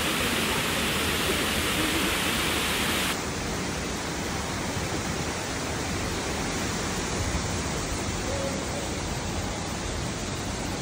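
Steady, even rush of water from a river flowing through a rocky gorge. About three seconds in it cuts abruptly to a quieter, duller rush.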